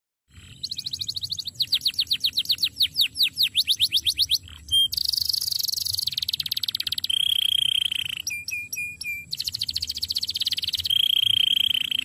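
Male domestic canary singing a long, varied song: fast runs of repeated notes, a series of quick downward-sweeping notes, buzzy rolls, and high held whistles, one just past the middle and one near the end.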